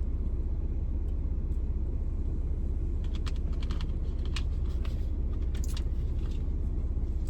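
Steady low rumble of a car's idling engine heard from inside the cabin, with scattered light clicks and crackles about three to six seconds in.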